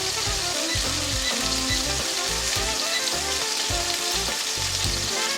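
Ahi tuna steak sizzling steadily as it sears in a very hot skillet with avocado oil, with background music playing underneath.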